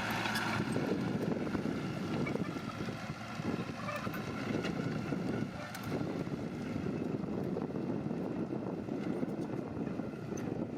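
Diesel engine of heavy earthmoving machinery running steadily, with a rough, uneven rumble.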